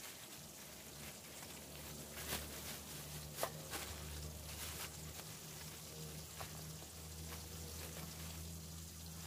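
Thin plastic bags rustling and crinkling as whole fish are wrapped and the bags twisted shut, with a few sharp crinkles standing out. A faint steady low hum runs underneath.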